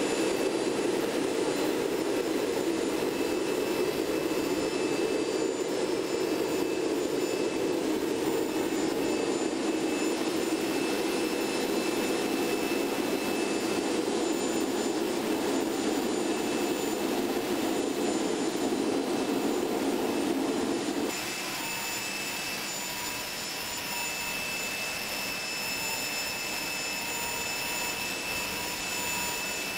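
Steady running of a small aircraft gas turbine, the 737's auxiliary power unit, with a deep rush under a high steady whine. About 21 seconds in, the deep rush drops away and the sound gets quieter, leaving the whine.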